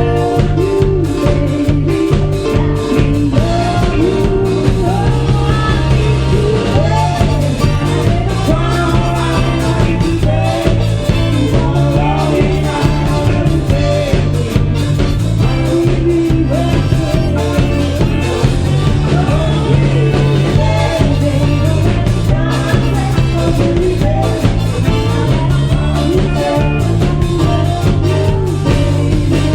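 A live band playing a song with a steady beat and guitar.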